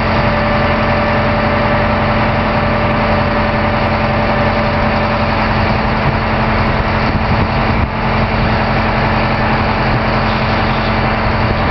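Engine of a 1979 Cooper freestanding single service rig running steadily while the top mast is retracted, with a steady whine above the engine noise.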